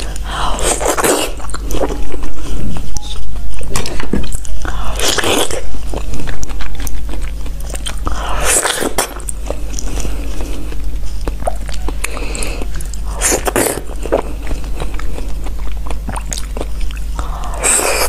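Close-miked biting and chewing of ripe mango flesh, with a louder bite about every four seconds and softer chewing in between.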